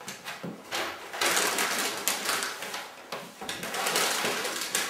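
Sheets of packing paper rustling and crinkling as they are folded and wrapped around a small kitchen appliance, in two long stretches, cutting off abruptly at the end.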